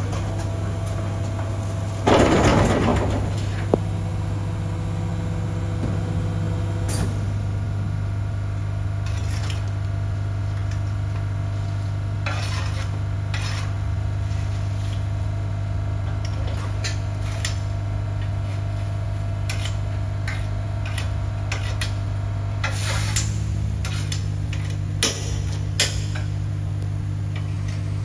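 Rear-loading BYD garbage truck humming steadily at the hopper, with a loud rush of refuse sliding in about two seconds in and scattered clatter and knocks of rubbish and metal after.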